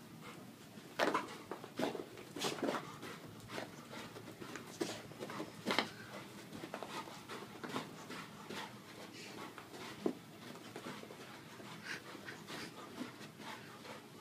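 A 70-pound Rottweiler scrambling after a laser dot on carpet: irregular thumps and scuffs of her paws as she darts and spins, the loudest in the first six seconds and one more about ten seconds in.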